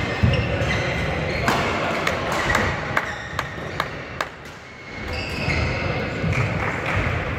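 Badminton rackets striking the shuttlecock in a run of sharp smacks, mostly in the first four seconds, with court shoes squeaking on the hall floor, all echoing in a large sports hall.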